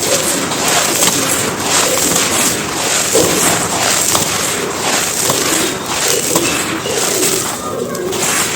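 Dry, gritty cement chunks being crushed and crumbled, a dense continuous crunching and crackling of breaking grit.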